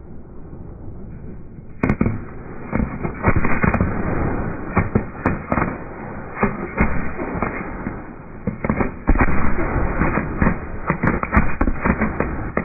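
Fireworks finale: many bangs going off in quick succession over a continuous rumble. After a quieter first two seconds, a sharp bang starts the barrage, and it gets louder and denser about nine seconds in.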